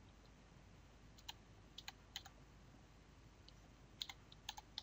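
Faint keystrokes on a computer keyboard: a few single key clicks spaced apart in the first half, then a quicker run of several keys near the end.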